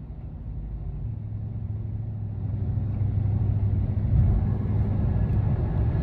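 Low, steady rumble of a vehicle in motion, growing louder over the first few seconds and then holding.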